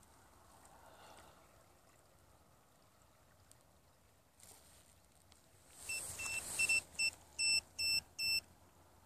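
A run of high electronic beeps from a bait-boat control or sonar unit, about six in all: a few short ones, then three longer ones, over a rushing hiss.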